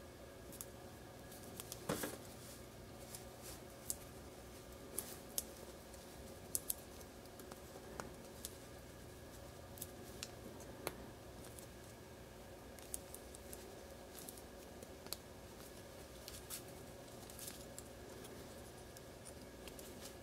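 Scattered faint clicks and ticks of small parts being handled: foam-taped 6mm micro quadcopter motors and their thin wire leads with plastic plugs, pinched and pushed into a small carbon fibre frame. A steady faint hum runs beneath.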